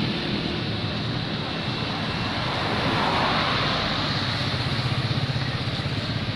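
Steady engine, road and wind noise from a vehicle being driven along a road, with a swell of noise about three seconds in as another car passes alongside.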